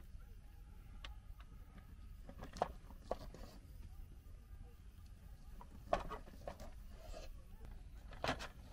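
Knife slicing cooked meat held with a fork on a small wooden cutting board, with scattered light clicks and knocks as the blade and fork meet the board, over a low steady rumble.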